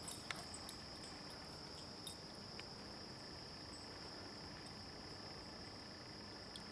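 Faint, steady high-pitched insect chorus, with a few light clicks in the first three seconds.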